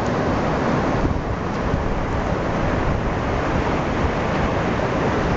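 Steady rushing noise of wind and surf, with wind buffeting the microphone.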